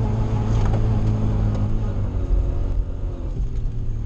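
Toyota 1UZ V8 swapped into a Nissan 240SX, running at a fairly steady pitch, heard from inside the cabin; it gets a little quieter about three seconds in.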